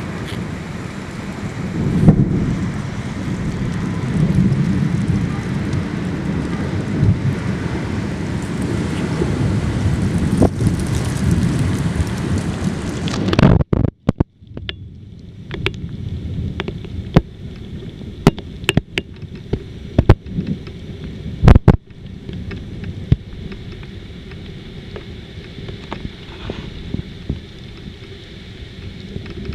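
Heavy storm rain with wind buffeting the microphone. About halfway through it cuts off suddenly to a quieter rain hiss, broken by sharp, irregular knocks.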